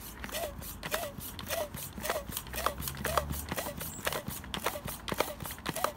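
A foot-operated floor pump being stamped in quick, regular strokes to inflate a bicycle tyre through a Schrader valve, about two strokes a second. Each stroke gives a sharp clack and a brief squeak.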